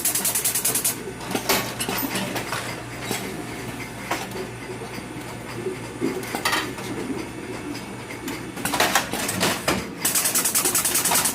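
Automatic cherry tomato packing machine running over a steady low hum. A fast, even ticking clatter stops about a second in and returns near the end, with irregular clinks and knocks in between.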